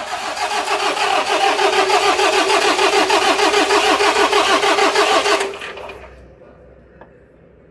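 BharatBenz 1214 truck's diesel engine being cranked by its starter motor for its first start after a head gasket repair, turning over in a steady rhythmic pulse without catching. The cranking stops about five and a half seconds in.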